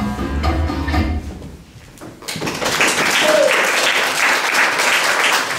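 Latin dance music plays and stops about a second and a half in. Just after two seconds in, the audience breaks into steady applause, hands clapping.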